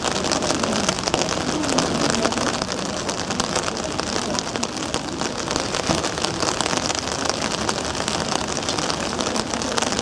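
Steady dense patter of what sounds like rain falling on a hard surface.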